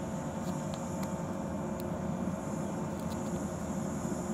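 Steady running noise of an electric train: a low rumble with a few faint steady whine tones and occasional faint clicks.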